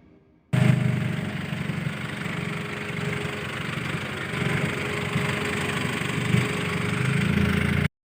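Car engine running with a steady low rumble and a rushing hiss, starting suddenly about half a second in and cutting off abruptly near the end.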